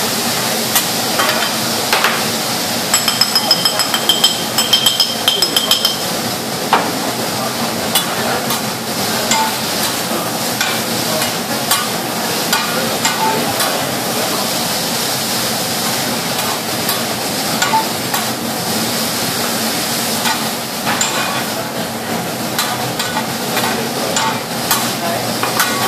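Noodles and vegetables sizzling on a steaming teppanyaki steel griddle, with metal spatulas scraping and clicking on the steel as the food is stirred and tossed. A few seconds in comes a quick run of ringing metal taps lasting about three seconds.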